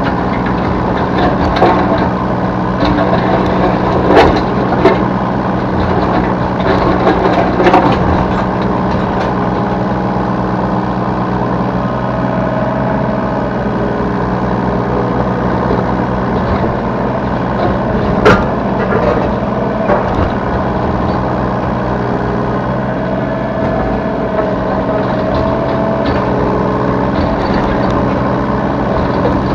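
Yanmar B3 Sigma mini excavator's diesel engine running steadily under work, with a whine from the hydraulics that comes and goes. Sharp knocks and clatter of the bucket and spoil come several times in the first few seconds and once loudly near the middle.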